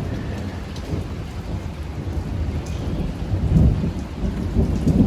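Rolling thunder rumbling, swelling about three and a half seconds in and again near the end.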